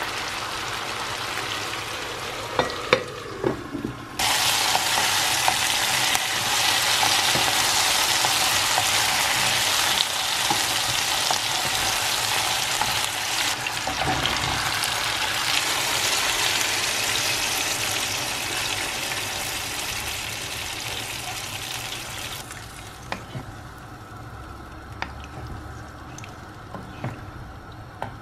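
Food sizzling as it fries in a pan. A loud hissing crackle starts abruptly about four seconds in and stops suddenly near the end, with a few clicks and knocks of utensils before and after.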